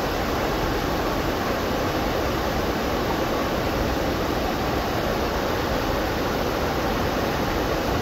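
Water pouring over a small dam's curved spillway and churning over rocks in the pool below: a steady rushing noise that does not change.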